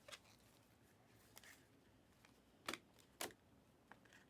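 Faint handling of trading cards, mostly near silence, with two short soft clicks a little over halfway through as cards are slid and flipped.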